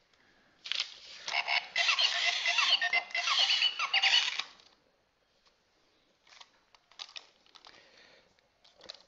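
Toy robot playing a run of electronic chirps and warbling bleeps with quick pitch sweeps for about four seconds, typical of a toy's sound effects when taking a programmed command sequence, followed by a few faint plastic clicks.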